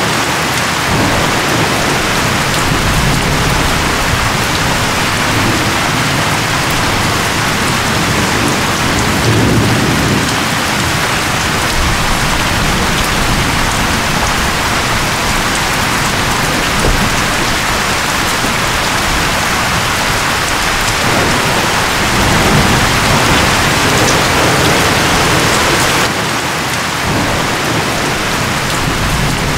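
Heavy rain and gusting wind of a thunderstorm: a loud, steady wash of noise with a shifting low rumble.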